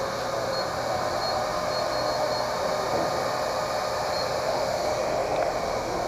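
Steady hum and hiss of an idling engine, with a few faint, short high beeps in the first half.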